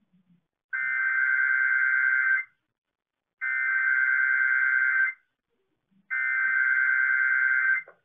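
Emergency Alert System SAME header as broadcast over radio: three identical bursts of buzzing digital data tones, each nearly two seconds long, about a second apart, marking the start of an EAS test.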